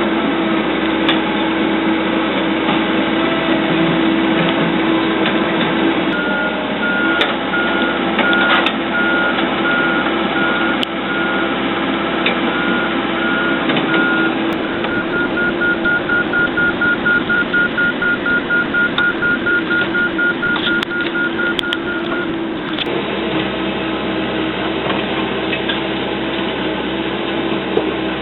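Excavator engine running steadily while its travel alarm beeps. The beeping starts about six seconds in, quickens to several beeps a second about halfway through, and stops about 22 seconds in while the engine keeps running.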